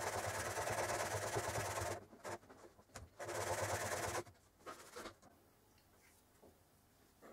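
Steel hammer head rubbed back and forth by hand on abrasive paper, a steady rasping scrape. It stops about two seconds in, starts again for about a second, then gives way to a few brief scrapes and knocks.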